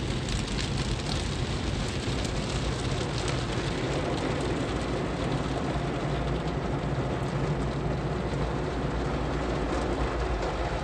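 Automatic tunnel car wash heard from inside the car: a steady spray of water beating on the windshield and body, with cloth brush strips slapping across the glass in the first few seconds, over a steady low hum.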